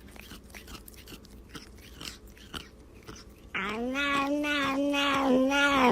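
A pet chewing, with small crisp clicks and crunches. About three and a half seconds in, a long, steady, wavering animal cry starts; it is much louder and is cut off near the end.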